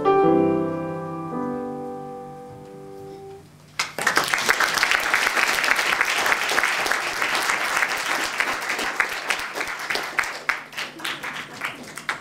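Upright piano played four-hands, its closing chords held and left to ring out and fade. About four seconds in, an audience breaks into applause, which thins out near the end.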